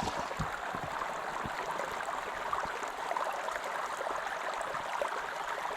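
Creek water running steadily, a continuous rushing of flowing water over rocks, with a few soft knocks in the first second and a half.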